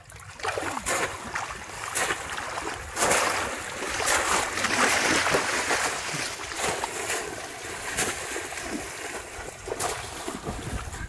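Water splashing and sloshing as bamboo polo fish traps are plunged down into shallow pond water and legs wade through it. The splashing is heaviest from about three to six seconds in.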